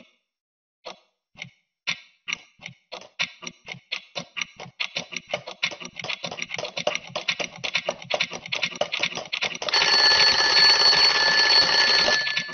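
Twin-bell alarm clock sound effect: ticks start about a second apart and speed up into a fast, continuous rattle. Near the end the bell rings loudly for about two and a half seconds, then stops, leaving a few ticks.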